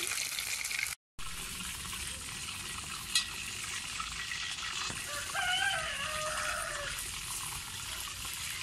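Battered mushroom pieces deep-frying in hot oil in an aluminium pan, a steady sizzle, broken by a short gap about a second in. A brief pitched call sounds in the background about five seconds in.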